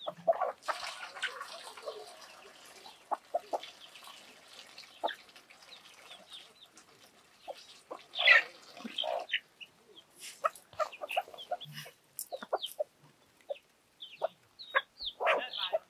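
Domestic chickens clucking while they feed, loudest about eight seconds in and again near the end, among scattered short ticks.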